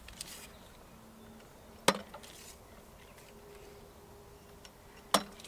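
Two sharp wooden knocks about three seconds apart, as the wooden sticks of bottle rockets are set into plastic crates and knock against each other, over a faint steady hum.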